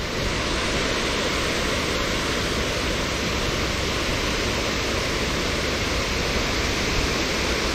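Steady, unbroken rush of falling water, an even noise spread across low and high pitches.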